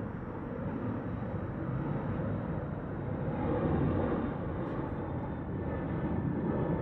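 Steady jet engine noise from a Boeing 737-800 climbing out just after takeoff, its two CFM56-7B turbofans at high thrust, swelling slightly midway.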